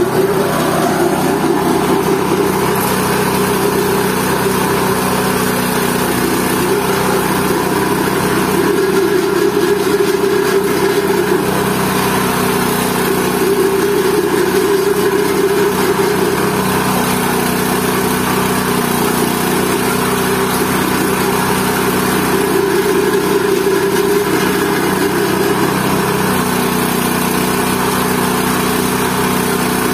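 GT-14 organic waste pulverizer (mesin pembubur) running steadily while grinding leafy vegetable waste such as taro leaves and spinach.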